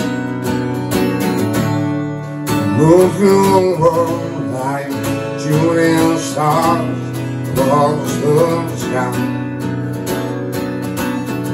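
Steel-string acoustic guitar strummed in a steady rhythm, with a man's voice singing a melody over it from about two and a half seconds in until shortly before the end.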